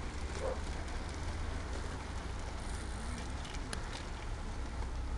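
A bunch of road bicycles riding past, tyres hissing on the tarmac with a few faint clicks, over a steady low rumble.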